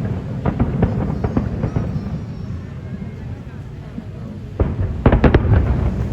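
Aerial fireworks bursting in a rapid series of sharp bangs and crackles over a constant low rumble, with a cluster of the loudest bangs about five seconds in.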